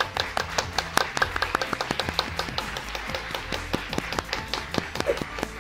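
Scattered clapping from a small group of people, with the individual claps heard distinctly and irregularly.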